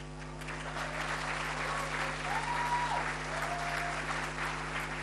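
Audience applauding, building up about half a second in and holding steady.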